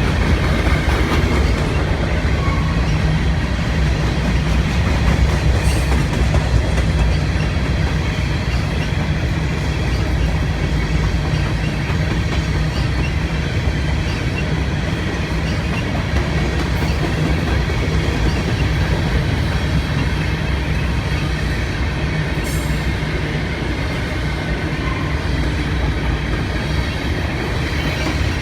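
Cars of a freight grain train rolling past on the rails: a steady, loud rumble of wheels on track, with a couple of brief sharp clicks.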